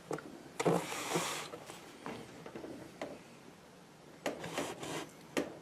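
Handling noise: a burst of rustling about a second in, then a few sharp clicks and another short rustle as things are moved about.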